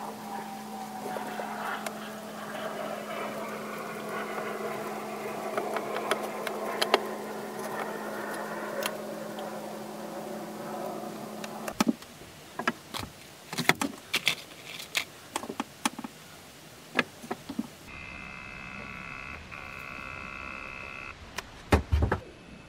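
Light wooden knocks and taps as a carved wooden toy plane is handled and set down on a board, a dozen or so scattered through the second half. A steady hum fills the first half, and a steady high whine sounds for a few seconds near the end.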